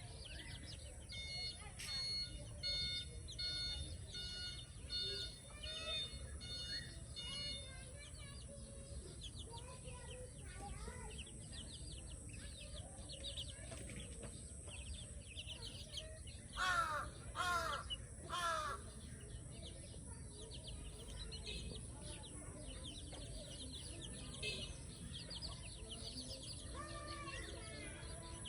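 Many small birds chirping and singing over a steady low background rumble. One bird repeats short even notes for the first several seconds. About 17 seconds in come three loud, harsh calls in quick succession.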